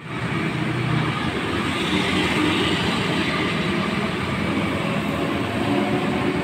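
Steady street traffic noise, with motorbike engines running past on the road.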